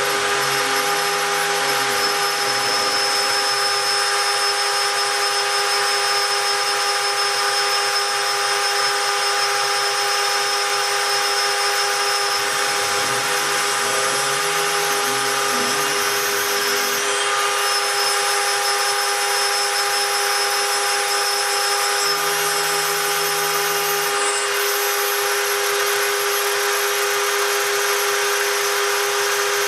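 Spindle of a homemade CNC gantry milling machine running with a steady high whine while engraving brass. Beneath it, a lower tone shifts pitch in steps now and then.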